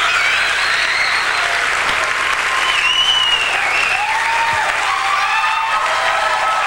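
Audience applauding steadily, with voices calling out over the clapping in rising and falling tones.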